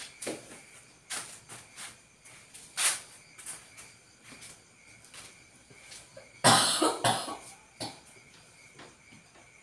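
Hands rubbing and kneading bare skin during a leg massage, making short, irregular rubbing strokes. About six and a half seconds in, a person coughs twice in quick succession, the loudest sound.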